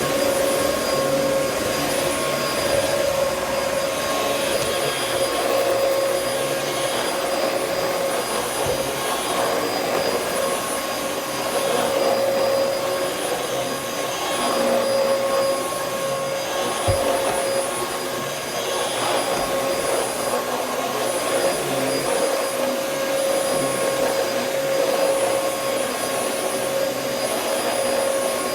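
Vacuum cleaner running steadily with a constant motor whine and a rushing hiss of suction that swells and eases as it is pushed over the floor, after being checked for a clog; it sounds a little bit better. A single short knock about 17 seconds in.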